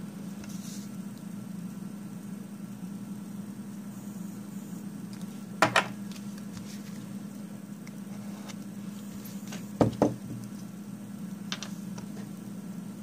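Light knocks and taps from a metal nail-stamping plate and a stamper being handled on a tabletop: two short double knocks, about six seconds in and again about ten seconds in, with a few fainter ticks, over a steady low hum.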